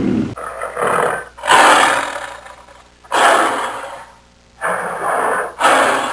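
An animal calling in a series of about five loud, rough calls, each about a second long and fading out, with short pauses between them.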